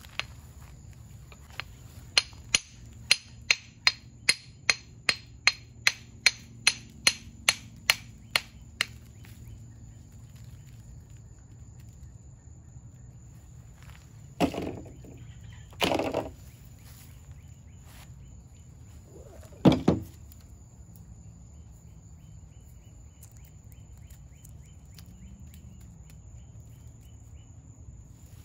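Claw hammer tapping a fossilized clam held in the palm to crack it open and expose the calcite crystals inside. A run of about sixteen light, evenly spaced strikes, roughly two and a half a second, is followed after a pause by three louder, separate knocks.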